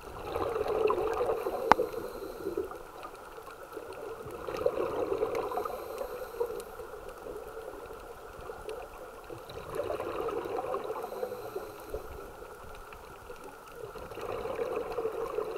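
Underwater sound of scuba exhaust bubbles gurgling from a diver's regulator, swelling and fading every few seconds with the breaths. There is a sharp click about two seconds in.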